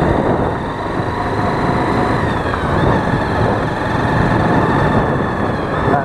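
Motorcycle engine running at a steady speed while riding, with a steady whine over heavy wind noise on the microphone.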